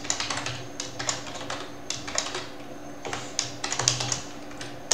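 Typing on a computer keyboard: a quick, uneven run of key clicks, with a louder key press near the end.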